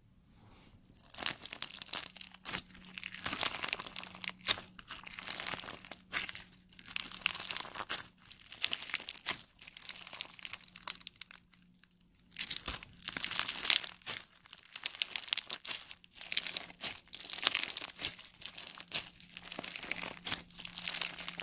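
Clear bead-filled slime being squeezed and stretched by hand, giving dense crunchy crackling in bouts of a few seconds with short pauses between.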